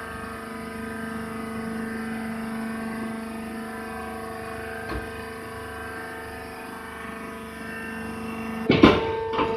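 Hydraulic baler's motor and pump running with a steady hum, a single click about five seconds in, then loud clanks near the end as the lowest part of the hum cuts off.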